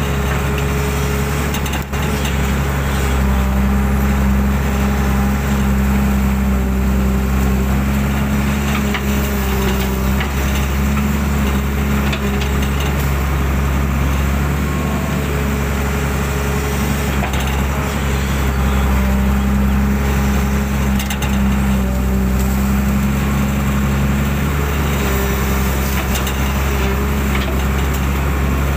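Hydraulic excavator's diesel engine running steadily under working load as the bucket digs out a muddy drainage ditch, its note growing stronger twice, with a few knocks and scrapes from the bucket.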